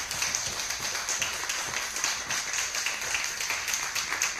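An audience applauding: many people clapping at once, at a steady level.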